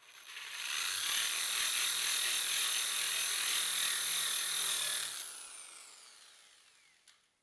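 Corded electric drill driving a hole saw through plywood: the motor runs steadily under load for about five seconds, then is released and winds down with a falling whine. A small click near the end.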